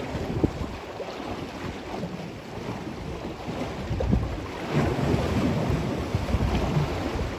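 Wind buffeting the microphone over choppy lake water, with small waves lapping and splashing. The wind rumble grows stronger a little past halfway through.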